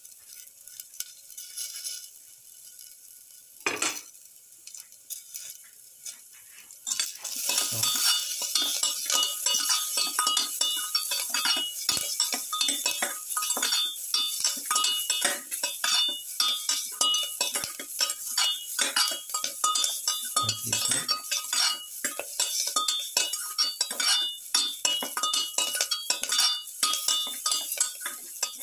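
A slotted spatula stirring and tossing vegetables in a cooking pan. After a quiet start with a single knock a few seconds in, it turns into continuous rapid scraping and clinking against the pan from about seven seconds in.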